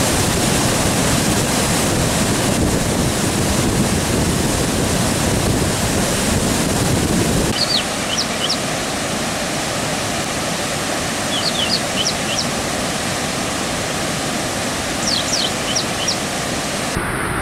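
Floodwater rushing out through a dam's open spillway gates: a loud, steady roar of falling, churning water. About halfway through it loses much of its deep bottom. Small groups of short high chirps come three times over the water noise.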